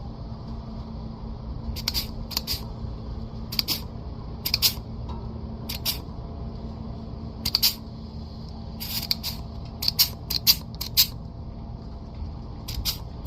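Pruning shears snipping ash twigs and branches: sharp metallic snips, often two or three in quick succession, every second or two. A steady low hum runs underneath.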